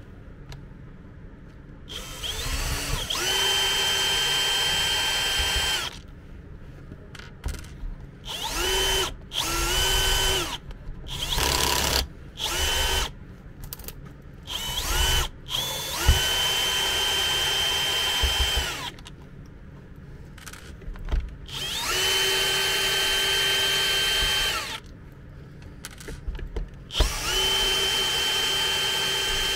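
Cordless drill-driver backing out the screws of a compressor's plastic housing. It runs in a series of bursts, each whine rising in pitch as the motor spins up and then holding steady for up to about three seconds. There are short pauses and a few clicks between the bursts.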